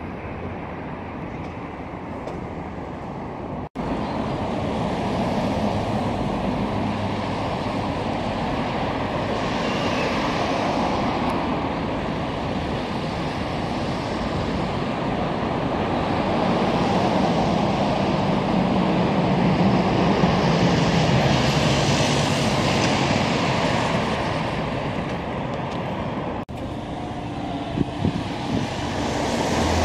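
Road traffic: cars passing with tyre and engine noise, a steady rush that swells and fades as vehicles go by. It cuts out for an instant twice.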